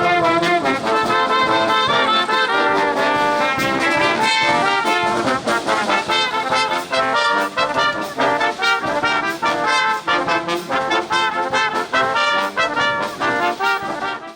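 Orchestra with prominent brass playing a lively piece; the notes turn shorter and more detached about halfway through, and the music cuts off abruptly at the end.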